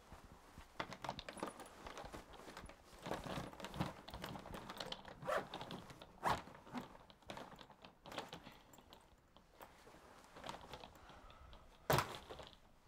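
Rustling and irregular light clicks and taps of a person moving and handling small things while sitting on the floor, with one sharp knock near the end as she gets up.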